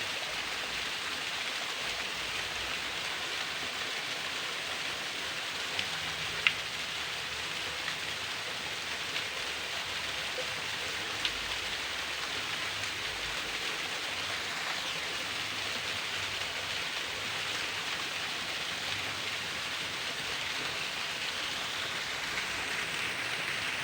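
A thin waterfall splashing steadily, a dense even hiss of falling water with a few sharper splash ticks, the loudest about six and a half seconds in.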